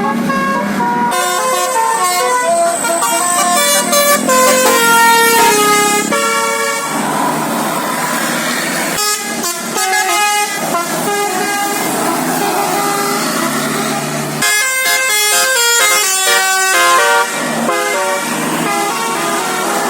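Telolet basuri musical bus horn playing quick melodies of short stepped notes, phrase after phrase, with a few abrupt breaks between phrases.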